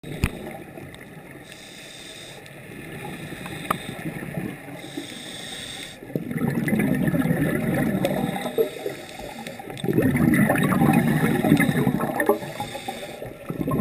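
Scuba diver's regulator breathing heard underwater: exhaled air bubbling out in two long bursts, from about six seconds in and again from about ten, softer before them.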